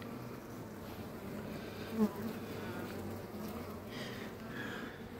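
Honeybees humming steadily on the combs of an opened hive, the colony crowding the frame. A short, louder sound breaks in about two seconds in.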